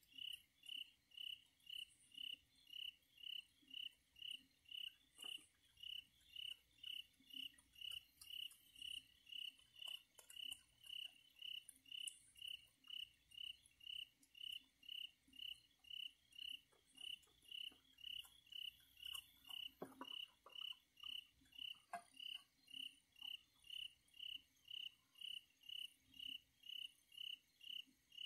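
A cricket chirping steadily, about two evenly spaced chirps a second at one high pitch, with a few faint clicks.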